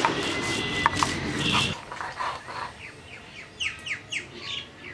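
Stone roller rubbed over a flat grinding stone (shil-pata), grinding wet paste, for about the first two seconds. Then small birds chirp in quick, falling chirps near the end.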